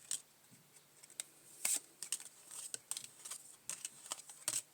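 Playing cards being handled and laid out on a table: a run of irregular soft snaps and brief slides as cards are drawn and put down.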